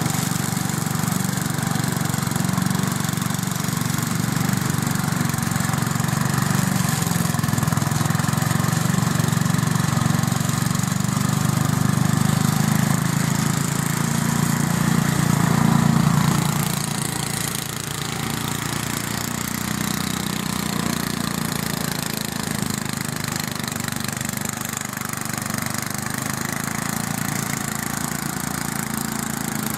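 Ride-on garden tractor's engine running steadily while mowing long grass. It grows louder until about two-thirds of the way through, then drops back to a lower steady level.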